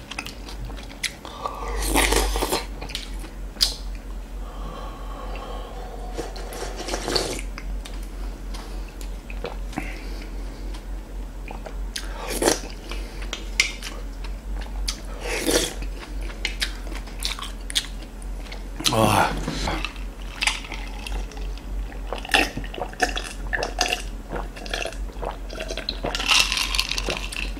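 Close-miked eating sounds: noodles slurped from a bowl of spicy yukgaejang, chewing, and gulps from a glass of a drink near the end.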